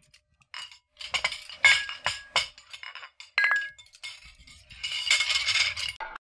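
A run of sharp clinks of hard objects on glass, a few ringing briefly, followed by a denser rattling clatter near the end.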